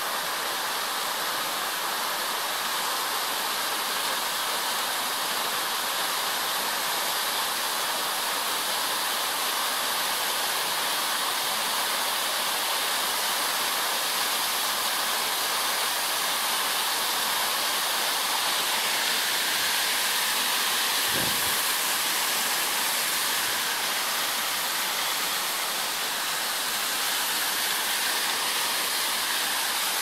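Waterfall: water falling and cascading over rocks in a steady rush.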